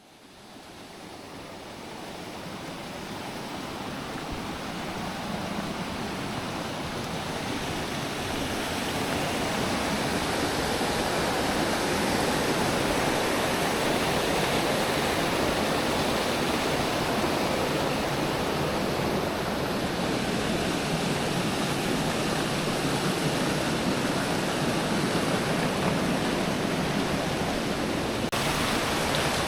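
Steady rush of water from the Eifersbacher waterfall and its mountain stream, swelling up over the first ten seconds or so and then holding level.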